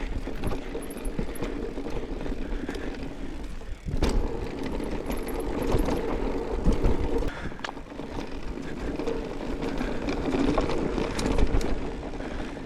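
Electric mountain bike ridden along a rough dirt trail: tyre and drivetrain noise with frequent knocks and rattles over bumps.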